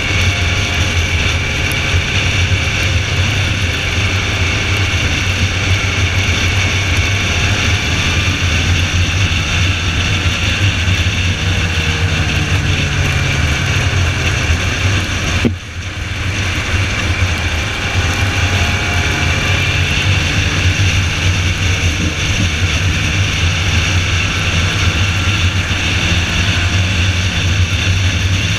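Car engine running hard at speed on a race track, a loud steady drone with its pitch gliding up and down, heard from on board. About halfway through the sound briefly drops out and comes back, as with a lift off the throttle or a gear change.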